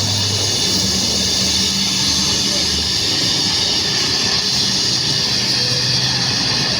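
Brazing torch flame hissing steadily while the capillary tube is brazed into the refrigerator's filter drier.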